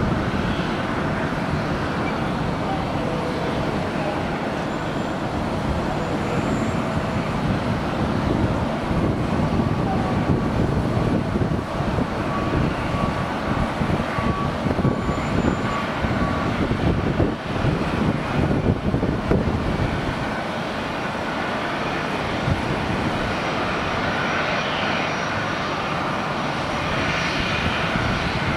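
Jet engines of a Boeing 767-200 freighter landing and rolling out on the runway: a continuous rumble that grows louder and rougher through the middle and eases toward the end.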